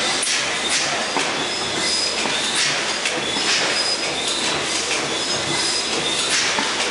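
Large Snow stationary gas engine turning over slowly during starting: hissing puffs about once a second over a steady mechanical clatter.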